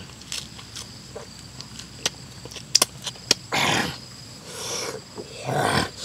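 A man eating noisily: sharp mouth clicks and lip smacks while chewing, then three breathy, noisy breaths through the mouth in the second half.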